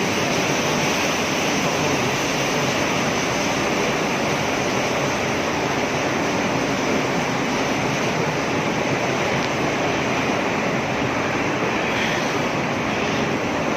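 Steady hissing noise of an automatic track idler welding machine at work, holding one even level throughout.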